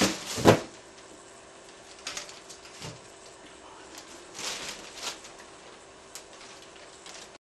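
A bag rustling, with a few soft knocks and clicks as someone rummages in it, and a heavier thump about half a second in, over a faint steady hum.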